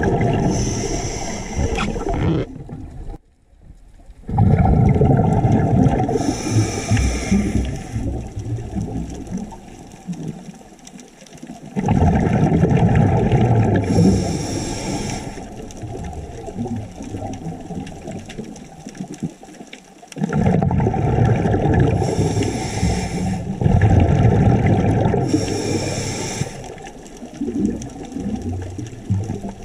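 Scuba diver's exhaled breath bubbling out of the regulator, heard underwater: long bubbling bursts with short quiet pauses between them, about four breaths, one every eight seconds or so.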